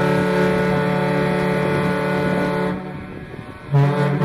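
The car ferry Badger's whistle sounds a long steady blast of several tones together that stops about three seconds in. A second, lower-pitched blast starts sharply near the end.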